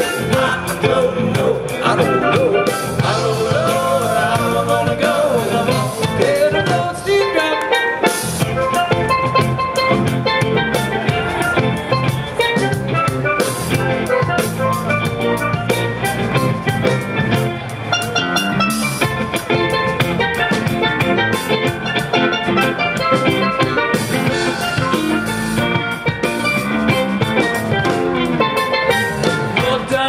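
Live band playing an instrumental passage on electric bass, electric guitar and drum kit.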